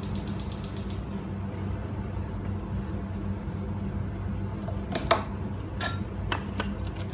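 Gas stove igniter clicking rapidly and stopping about a second in as the burner catches, over a steady low hum; a few light clinks and knocks of kitchenware follow near the end.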